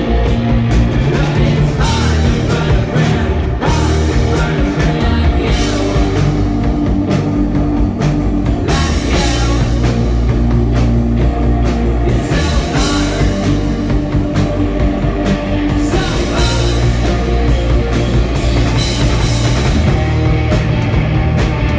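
Live rock band playing loud: electric guitar, bass guitar and drum kit, with a steady drum beat.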